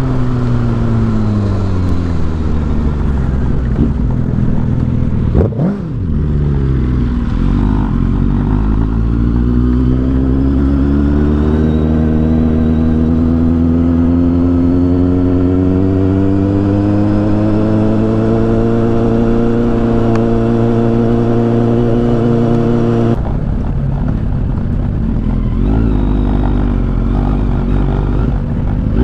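Kawasaki Z800's inline-four engine heard while riding. The note falls as the bike slows in the first few seconds, then climbs slowly and steadily as it pulls away under throttle. Near the end the note changes abruptly to a lower, rougher running sound.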